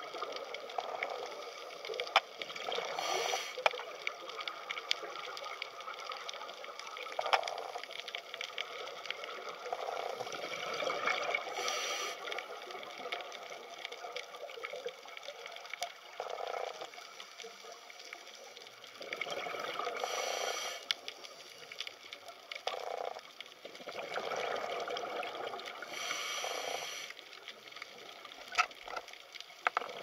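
Underwater water noise with continual bubbling and fine crackle. A louder rush of bubbles comes four times, several seconds apart, as from a scuba diver exhaling through the regulator.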